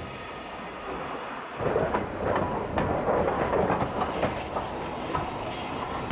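Train moving along the track: irregular clanking and rattling of wheels and couplings, which gets louder about a second and a half in.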